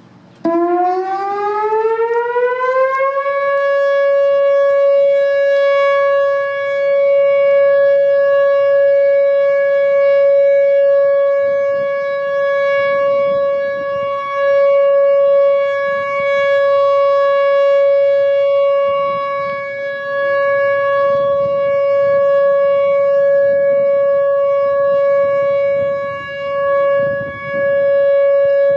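Whelen Vortex outdoor warning siren starting up about half a second in. Its pitch rises for about three seconds, then holds one steady, loud tone: the siren's alert signal, sounded as a test.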